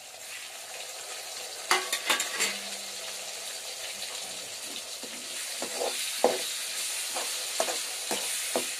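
Onion and garlic masala sizzling in a metal karahi as chopped tomatoes and green chillies go in, the sizzle growing louder in the second half. A metal ladle scrapes and clinks against the pan while stirring, a couple of knocks early and frequent clinks from about halfway on.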